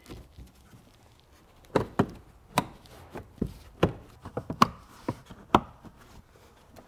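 Carpeted car trim panels being pressed and patted into place by a gloved hand, giving a series of irregular knocks and taps. The knocks start about a second and a half in, about a dozen of them, some louder than others.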